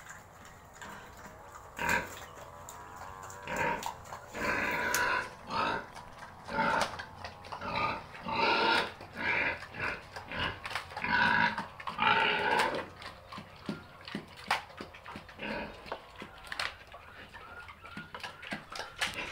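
Sow grunting in a run of short calls as she eats feed from a concrete trough. From a little past the middle on, mostly sharp clicks and smacks of her chewing are heard.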